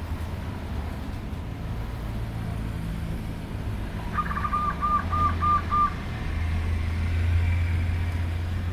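Zebra dove calling: a quick run of about six cooing notes a little after the middle, over a low steady rumble.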